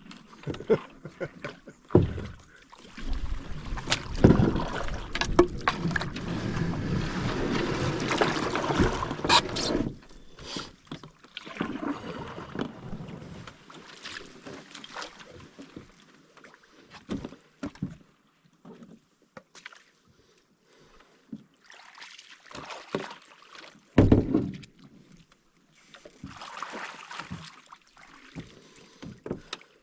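Canoe driven hard at a beaver dam: a long, loud scraping rush from about three to ten seconds in as the hull grinds over the dam, with a hard knock near the start. Then scattered paddle strokes, splashes and knocks on the hull, with one heavy thump near the end.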